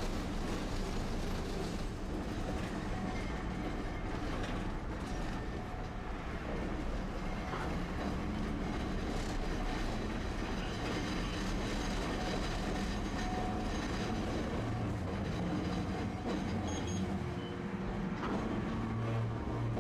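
Tosaden streetcar running along its street track, heard from inside the car: a steady rumble of the wheels on the rails.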